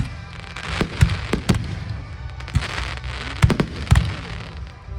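Aerial fireworks bursting in quick, uneven succession: a dozen or so sharp bangs, several of them close together, over a steady crackling haze.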